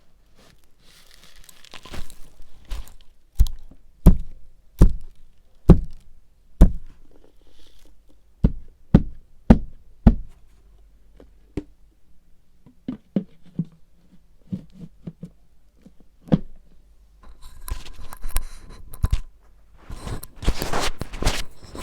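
A series of sharp knocks, about fifteen at uneven intervals a half-second or so apart, followed near the end by rustling and handling noise.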